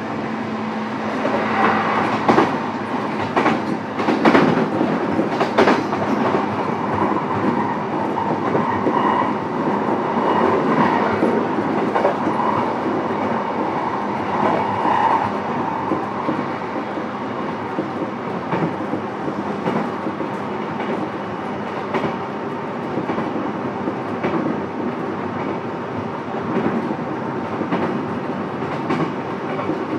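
Inside a JR East E233-7000 series commuter train motor car running along the line: a steady rumble of wheels on rail, with clickety-clack over rail joints and several sharp clicks in the first six seconds.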